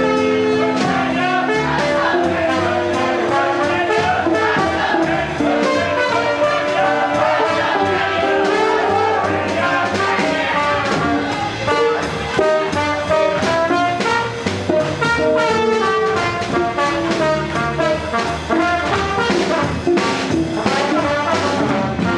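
Swing jazz band with brass playing a dance tune with a steady beat.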